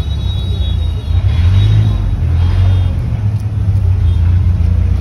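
Road traffic: motor vehicle engines running close by as a low, steady rumble, swelling as a vehicle passes between about one and three seconds in.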